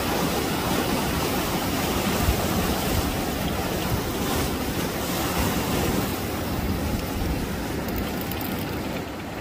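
Ocean surf breaking on the shore: a loud, steady rush of waves that eases slightly near the end.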